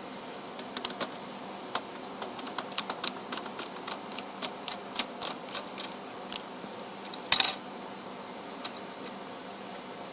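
Small plastic and metal parts of a PlayStation 3 clicking as the console is taken apart by hand: a run of sharp light clicks, about three a second, then a louder clatter about seven seconds in. A faint steady hum runs underneath.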